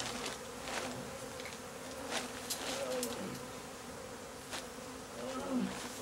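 Swarm of Africanized (killer) honey bees buzzing in a steady hum around the workers, with a few brief rustles or knocks on top.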